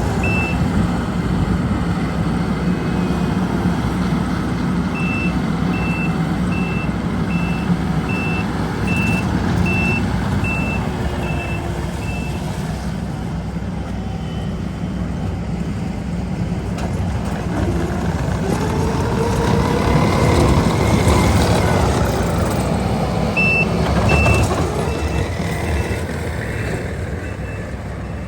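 Heavy paving equipment's engine running steadily, its reversing alarm beeping about one and a half times a second in a long run and again near the end. About two-thirds of the way through the engine note rises and grows louder as the machine works.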